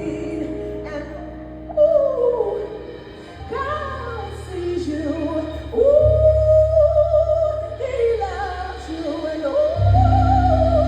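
Music: a woman singing a slow vocal line that slides and bends through long held notes, over deep sustained bass notes that come in a few seconds in and swell again near the end.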